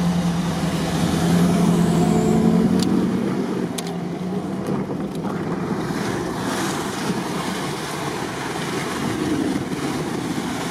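Car driving on a wet, partly flooded road, heard from inside the cabin: a steady engine hum over the first few seconds, then mostly the even hiss of tyres on wet tarmac.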